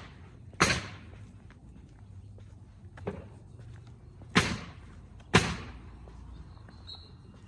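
Footsteps of a person walking, four loud steps at uneven intervals, the second one fainter than the others, each with a short fading tail.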